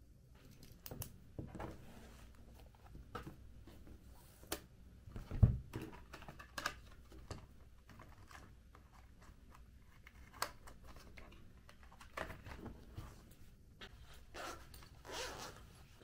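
Small handling sounds: rustles and clicks of a hardcover journal being handled, with one dull thump about five and a half seconds in as it is shut or set down. Near the end comes a longer raspy stretch like a zipper being drawn.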